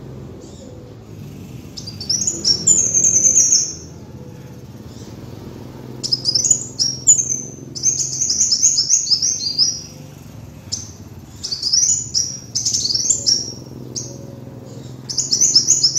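Kolibri wulung sunbird singing: high, rapid runs of down-slurred notes in phrases of one to three seconds with short pauses between them, over a faint steady low hum.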